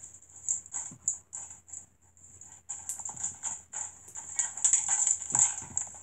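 Hands playing with crunchy, bead-filled slime, making a run of wet clicks and pops that grow louder and busier about two-thirds of the way in.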